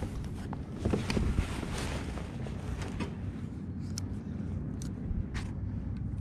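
Wind buffeting the microphone on a fishing kayak, a steady low rumble, with a few faint creaks and sharp clicks, the loudest about four and five and a half seconds in.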